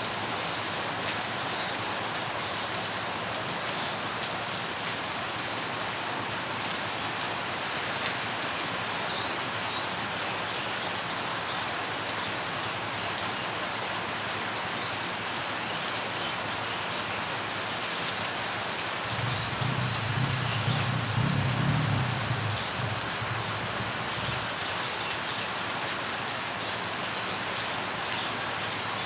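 Rain falling on muddy floodwater over a road: a steady hiss and patter of drops striking the water surface. A low rumble swells for a few seconds about two-thirds of the way through.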